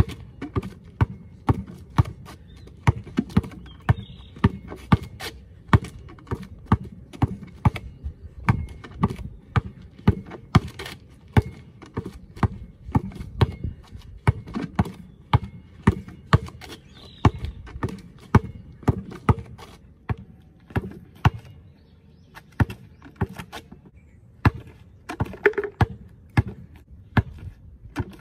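Basketball dribbled hard on asphalt: a steady run of sharp bounces, about two a second.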